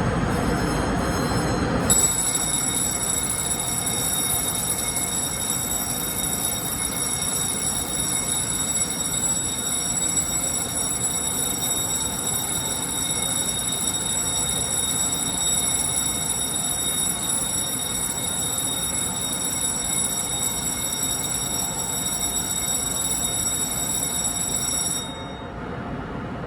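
Electric train at a station platform: a low rumble for the first two seconds, then steady high-pitched tones held for about 23 seconds that cut off suddenly near the end.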